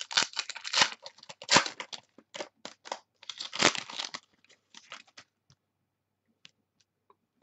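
Crinkling and tearing of a plastic trading-card pack wrapper as it is opened, mixed with the rustle and snap of the cards being handled. A quick run of sharp crackles lasts about four seconds, thins to a few soft clicks, and stops about five seconds in.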